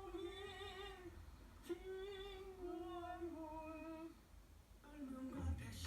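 A singer holding two long sung notes with a wavering vibrato, the second lasting over two seconds. Music with a low beat comes in near the end.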